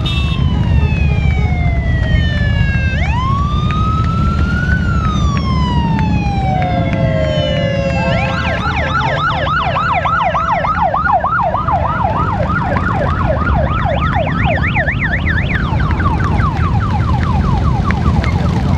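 An emergency siren wailing in slow rising and falling sweeps, switching about halfway through to a fast yelp, over the steady low rumble of a column of Harley-Davidson motorcycles riding past.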